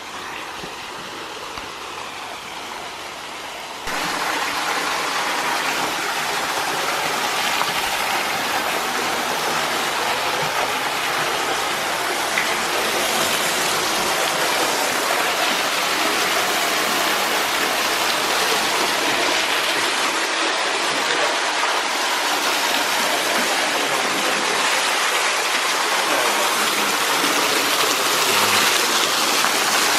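A waterfall's falling water rushing steadily; it becomes suddenly louder about four seconds in.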